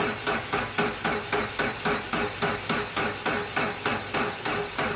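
Starter motor cranking the 2.5-litre SOHC EJ flat-four of a 2009 Subaru Forester, a slow, even beat of about four to five pulses a second, without the engine catching; the cranking stops abruptly just before the end. It is slow cranking on a weak battery, its voltage sagging to about 6 V under the starter, a battery run down by a dead alternator.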